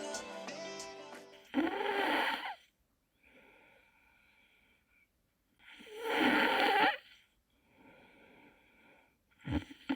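A man snoring in his sleep: two long, loud snores about four seconds apart, with fainter breathing between them. Background music fades out just before the first snore.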